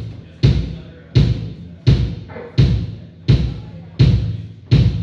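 Kick drum struck alone in a slow steady beat, about seven even hits a little under a second apart, each with a quick attack and a short boom, played for a monitor sound check.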